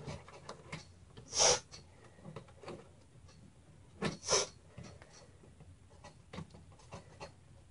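Light clicks and taps of an optical drive being handled and slid into a computer case's drive bay. About a second and a half in and again about four seconds in come two louder breathy sniffs.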